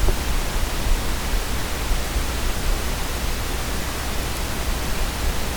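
Steady hiss of background noise with a low, even hum underneath; nothing else sounds.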